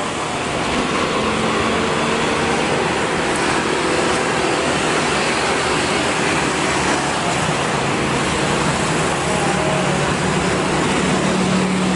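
Steady noise of engines and traffic, with no distinct events.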